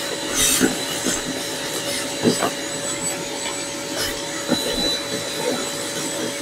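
A VacMaster 3-peak-HP, 5-gallon wet/dry shop vacuum running with a steady whine while leaves, dirt and debris are sucked up the hose, rattling and crackling at irregular moments.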